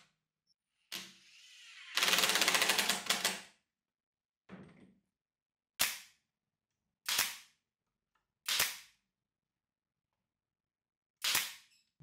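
Bosch cordless impact driver rattling as it drives a screw into plywood, a brief burst and then one of about a second and a half. This is followed by four sharp single shots from a pneumatic brad nailer at uneven intervals.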